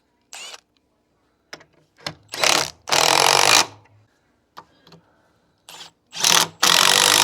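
Handheld power driver running in short bursts, two rounds of a brief spin followed by a longer run, as it drives the bolts that fasten the press legs.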